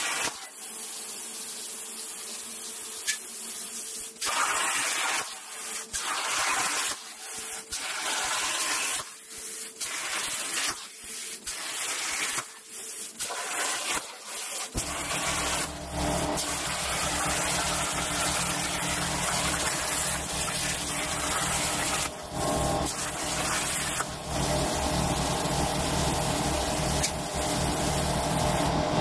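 CNC plasma torch cutting 14-gauge hot-rolled steel sheet: a loud, steady hiss that stops and restarts several times in the first half. About halfway through, a steady low hum joins under the hiss.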